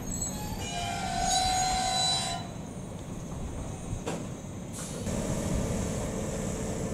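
Electric commuter train with a high squeal from its wheels and a steady whining tone, which stop about two and a half seconds in. After a click near the middle, a steady low hum comes in about five seconds in.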